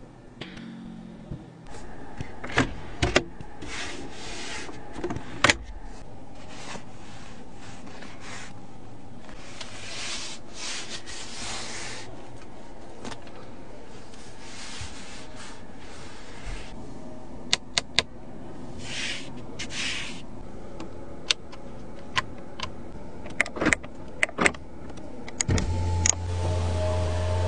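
A small electric motor of the power seat whirs steadily in the car cabin. Sharp clicks of buttons and switches break in now and then, along with the brushing rustle of a hand on the leather upholstery.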